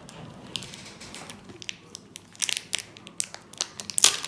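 Crinkling and crackling as the Skifidol Food Slime and its plastic container are handled, a string of short, sharp crackles that grows busier about halfway through. The loudest snap comes near the end.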